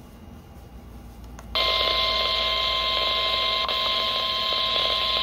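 Weather radio sounding its warning alarm tone over static: after a second and a half of faint hiss, one steady, unbroken single-pitched tone starts abruptly and holds. This is typical of the NOAA Weather Radio 1050 Hz alert tone that comes before a broadcast warning.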